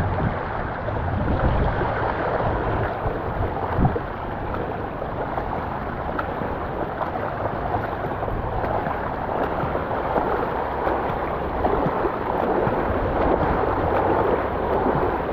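Bicycle wheels rolling through floodwater over the road, a steady wash of splashing water, with one knock about four seconds in.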